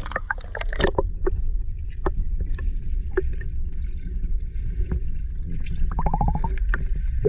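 Shallow water splashing and sloshing over a steady low rumble, with a cluster of sharp clicks and knocks in the first second, scattered knocks after, and a quick run of clicks about six seconds in.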